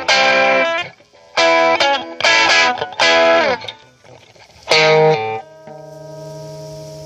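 Electric guitar on its bridge pickup, volume full up, through a Trinity Tweed amplifier set to 5: about five strummed chords, some sliding down in pitch, then a chord left to ring and slowly fade.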